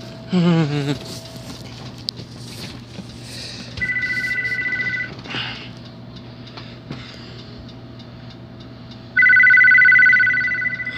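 Electronic telephone ringer sounding twice, a steady two-tone trill. The first ring lasts about a second and the louder second ring comes about four seconds later and lasts about two seconds. A brief wavering voice sound comes in the first second, with a faint steady electrical hum underneath.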